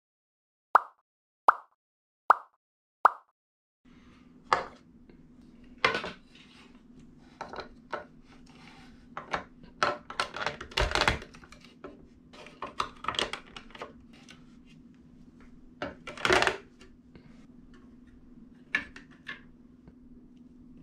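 Four short electronic pings about a second apart, then plastic marble-run track pieces clicking and clacking as they are fitted together and set on a wooden stand, with irregular knocks over a faint steady hum.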